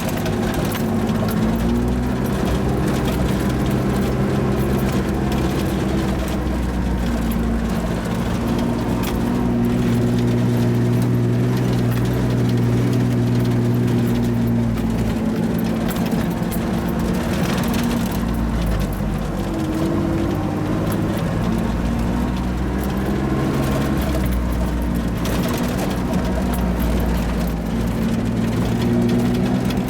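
1988 Toyota 4x4's engine running as it drives a rough dirt road, its note rising and falling several times with the throttle.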